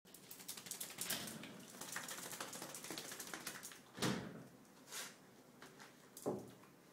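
Toy poodle's claws clicking and scrabbling on a tiled floor as it dashes about, with three louder thumps about four, five and six seconds in.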